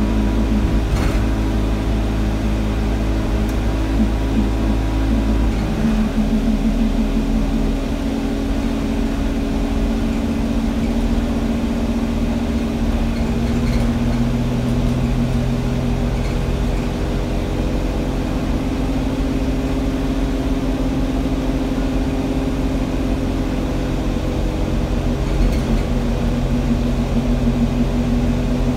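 Alexander Dennis Enviro200 single-deck bus's diesel engine, heard from inside the passenger saloon while the bus is under way, running steadily. Its note shifts about six seconds in and again around thirteen seconds.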